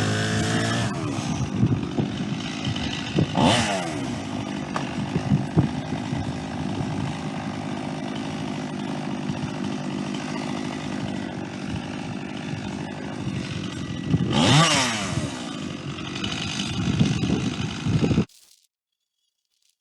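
Chainsaw running under load as it rips lengthwise through a white pine log in a chainsaw mill attachment, its engine note dipping and swinging back up twice. The sound stops abruptly near the end.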